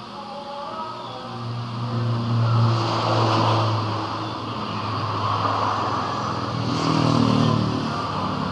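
A vehicle engine running, its low hum coming in about a second in and swelling louder twice.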